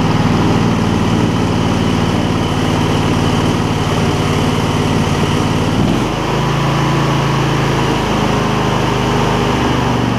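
Briggs & Stratton Intek 20 hp V-twin engine on a garden tractor running steadily without surging, its carburettor freshly cleaned. Its note shifts slightly about six seconds in.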